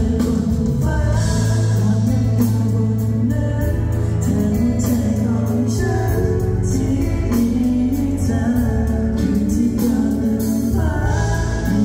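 Live pop song: two male singers singing into handheld microphones over instrumental backing with a steady bass.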